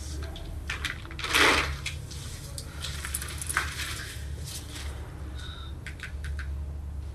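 A bag or package being handled: scattered light clicks and clinks with one louder rustle about a second and a half in, over a low steady hum.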